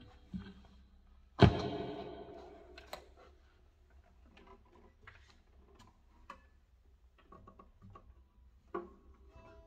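Handling noise from an acoustic-electric guitar while guitars are being swapped. About a second and a half in comes a sharp knock, and the open strings ring out for over a second after it. Then come scattered light knocks and clicks, and another thump near the end.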